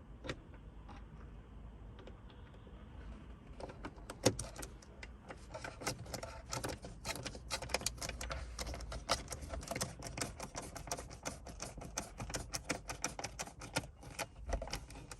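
Many quick, irregular small clicks and rattles of hard objects being handled, sparse at first and then dense from about four seconds in, as hand tools, screws and plastic trim parts are worked.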